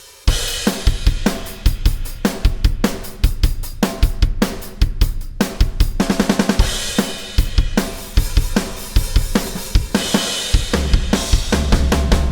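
Drum kit played on its own: a steady beat of bass drum, snare, hi-hat and cymbals, getting louder just after the start, with a quick run of strokes about six seconds in.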